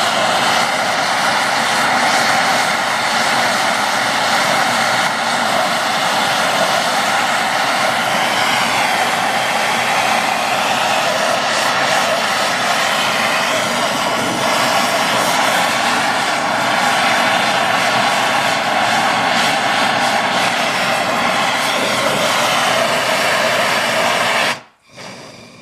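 MAP gas torch (TS-8000) burning at full flame: a steady, loud rushing roar as it heats an aluminum boat propeller blade for brazing. The roar cuts off suddenly near the end.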